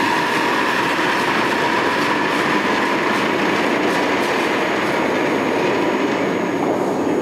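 Granite curling stone sliding down the ice with a steady rumble, while brooms sweep ahead of it.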